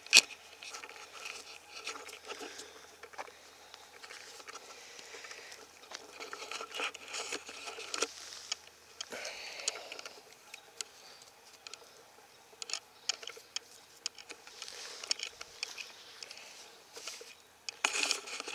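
Camera handling noise: irregular rustling and scraping with scattered light clicks and knocks as a hand-held camera is set down, picked up and swung about, mixed with the rustle of clothing while a beekeeper's veil is put on.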